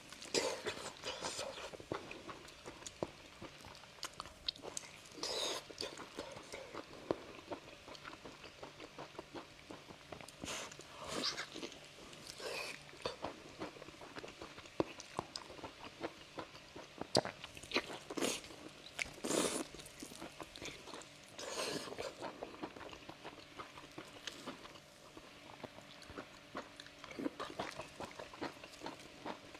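Close-miked person chewing and biting seafood, with irregular louder bites and crunches between quieter chewing clicks.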